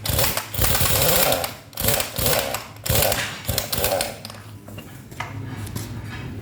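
Hino 500 FG 235Ti truck running in neutral, its transmission giving a harsh growl that comes and goes in bursts for about four seconds, then settles to a steadier, quieter run. A growl like this in neutral with the clutch released is taken as a sign of a worn transmission input shaft bearing.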